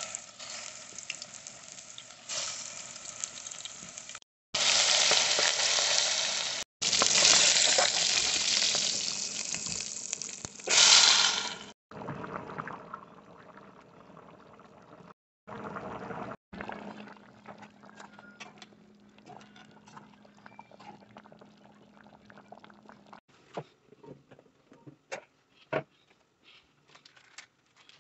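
Meatballs sizzling loudly as they fry in a metal pot, in several short takes broken by abrupt cuts. Then a quieter simmer of the meatballs in red sauce with faint crackling and popping, and a few sharp clicks near the end.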